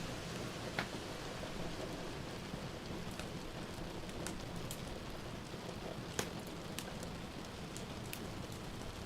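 Steady rain hissing, with a wood fire in a fireplace giving a sharp crackle every second or so, strongest about a second in and again near six seconds.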